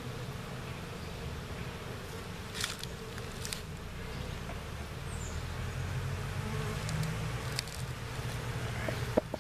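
A swarm of honey bees buzzing steadily around an open hive, swelling a little partway through, with a few light clicks.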